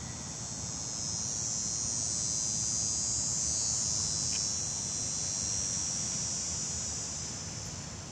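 Insects trilling in a steady high-pitched buzz, growing louder about a second in and easing off toward the end.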